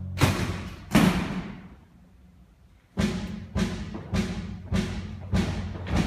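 Live theatre orchestra playing the opening of a musical number. A held chord stops, then two loud struck percussion hits come about a second apart. After a short near-quiet gap, a steady beat of struck hits sets in, a little under two a second.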